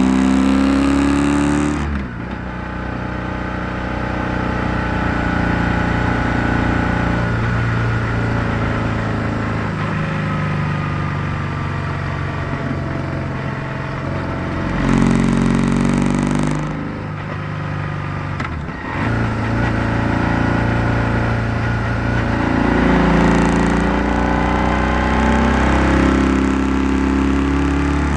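BMW R1100R's air/oil-cooled flat-twin boxer engine running under load while riding. The engine note falls off about two seconds in, swells again around fifteen seconds, drops off briefly a couple of seconds later and then picks back up as the throttle is opened and closed through the bends.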